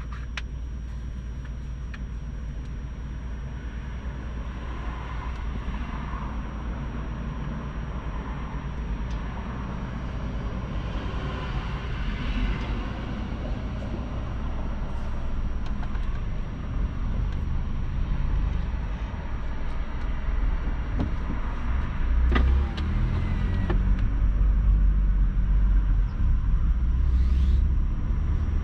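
A car driving along, its road and engine rumble steady and low, growing louder over the second half. A brief sharp knock comes about three-quarters of the way through.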